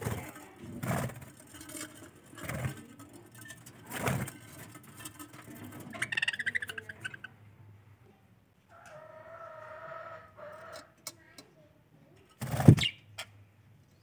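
Budgerigars chirping and warbling, with a fast trill about six seconds in. Scattered knocks and rustles come early on, and there is one loud knock near the end.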